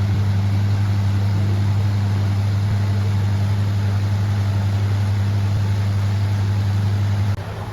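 A loud, steady low hum, starting suddenly and cutting off suddenly near the end.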